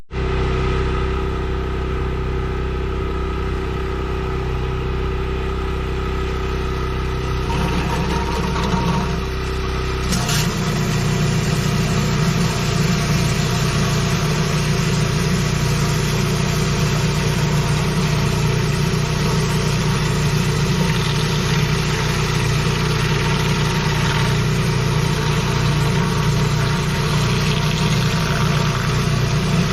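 Pressure washer engine running steadily. About ten seconds in its note changes and a steady hiss joins it, holding to the end.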